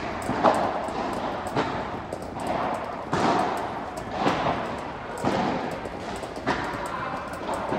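Padel rally: the ball is struck back and forth with paddles and bounces on the court, sharp pops coming about once a second, each ringing briefly in a large covered hall.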